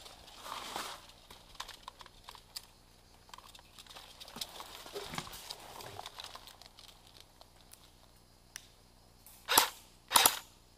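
Rustling of clothing and gear with small scuffs and clicks, then two short bursts of airsoft gunfire about half a second apart near the end.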